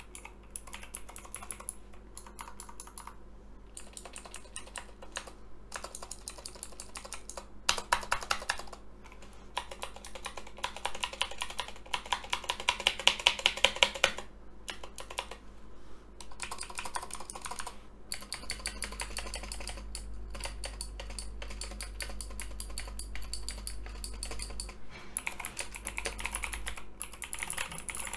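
Typing on a Razer BlackWidow V3 TKL mechanical keyboard with clicky Razer Green switches and Razer PBT doubleshot keycaps: a continuous stream of key clicks, with a run of louder, evenly spaced strokes about halfway through.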